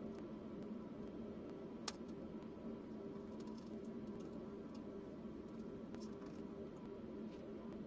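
TIG welding arc burning steadily: a low, even hum with faint crackling ticks, and one sharp click about two seconds in.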